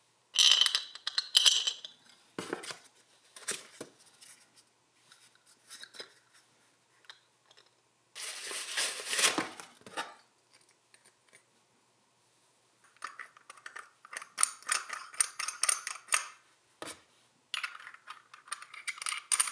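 Hands handling the parts of a tub drain kit out of its box: rustling of the plastic wrapping and light clicks, clinks and scrapes of the chrome-plated metal drain parts, in short bursts with pauses between. A longer rustle comes about eight seconds in, and runs of small rapid ticks near the end as the drain pieces are turned in the hands.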